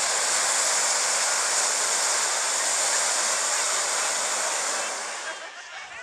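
Hot-air balloon's propane burner firing in one long blast: a loud, steady hiss that starts abruptly and eases off after about five seconds.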